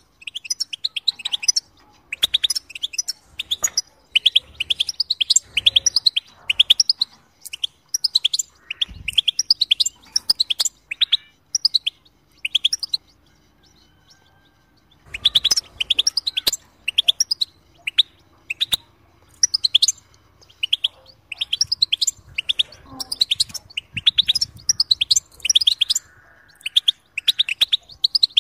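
European goldfinch singing: long runs of quick, high twittering chirps, with a pause of about two seconds around the middle.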